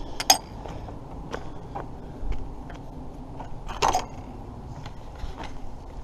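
Metal latch on a wooden field gate worked by hand: a sharp click just after the start as it is lifted, then a clank near four seconds in as the gate swings to and latches, with a few small rattles between. A low rumble of wind on the microphone runs underneath.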